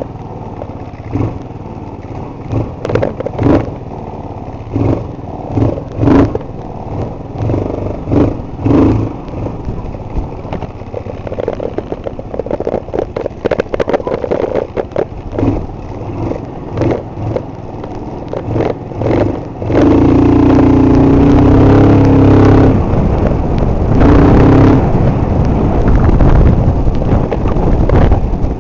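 Vog 260 scooter's Linhai 257cc single-cylinder engine running while riding, with uneven knocks and buffeting on the microphone. About twenty seconds in it gets much louder and holds a steady higher note for several seconds under throttle, then eases slightly.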